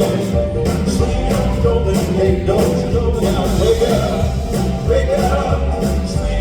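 A Southern gospel quartet and band playing an upbeat, swinging song live, with a steady drum beat and voices singing.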